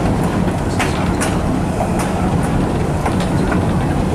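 GE 70-ton diesel locomotive running along the track: a steady engine and wheel rumble, with a few irregular sharp clicks from the wheels on the rails.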